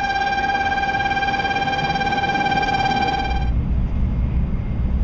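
A steady, high electronic tone with ringing overtones sounds over the platform noise and cuts off abruptly about three and a half seconds in. A low rumble from inside a Shinkansen car follows.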